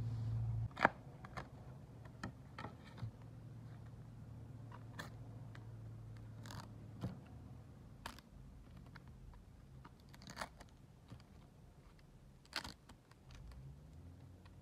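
Scattered light clicks, taps and scrapes of hands handling a paper photocard, washi tape and a clear plastic toploader, with the sharpest tap about a second in.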